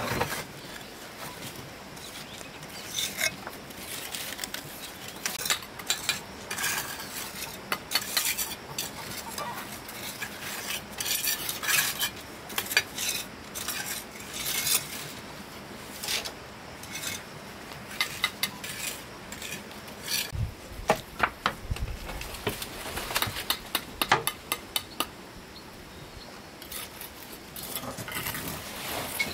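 Irregular clinking and scraping of hard objects, with a few low thuds about two-thirds of the way through.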